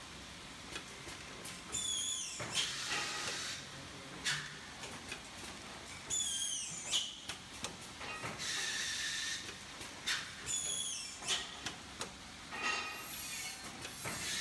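Blister packaging machine (model DPB-400B) running through its forming and sealing cycle. About every four seconds there is a high squeal falling in pitch, followed by a burst of compressed-air hiss lasting about a second, with light clicks and knocks between.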